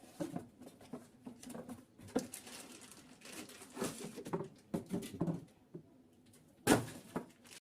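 Hand-handling noises of unboxing: irregular rustling and light knocks of packaging, with one much louder thud near the end. The sound cuts off abruptly just before the end.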